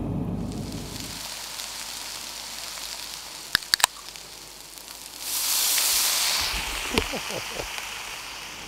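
Ring-pull beer can being opened: a few sharp clicks from the tab, then a loud hiss of escaping gas lasting about a second.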